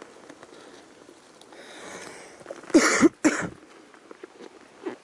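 A person coughing twice in quick succession, loudly, about three seconds in, after a softer noisy breath.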